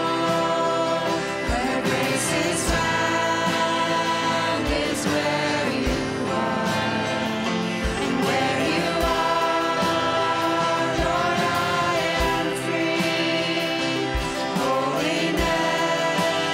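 A worship song: singing voices over instrumental accompaniment, with a low beat about every one and a half seconds.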